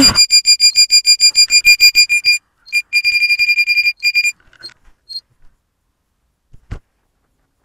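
Quadcopter's piezo buzzer beeping rapidly, about eight short high-pitched beeps a second, with a brief gap about two and a half seconds in, then stopping a little after four seconds into a few scattered beeps. A single soft knock comes near the end.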